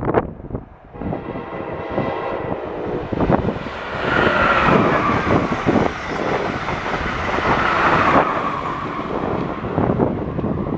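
Amtrak electric passenger train, hauled by an ACS-64 locomotive, rushing past at speed. The rumble of wheels on rail builds from about a second in, is loudest with a high steady whine from about 4 to 8 seconds in, then eases off as the train goes away.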